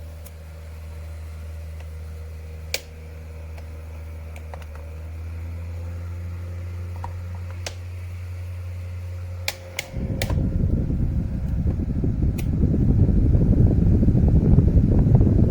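Small Voxon USB desk fan running with a steady low hum and a few sharp clicks. About two-thirds of the way in, right after a couple of clicks, a loud rumbling rush of air starts and grows louder. It is definitely not quiet, noisier than a big fan.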